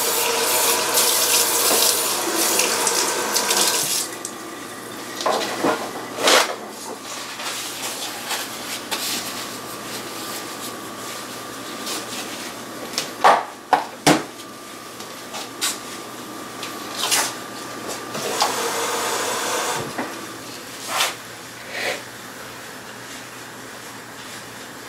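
Kitchen tap water running into a plastic cup for about four seconds, then shut off. Scattered knocks and clunks follow, and the water runs again briefly about three quarters of the way through.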